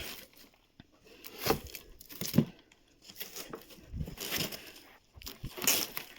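Packaging being handled during an unboxing: several separate bursts of rustling and crinkling, with a sharper crunch about two and a half seconds in.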